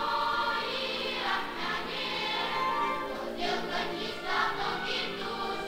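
Background music: a choir singing held notes.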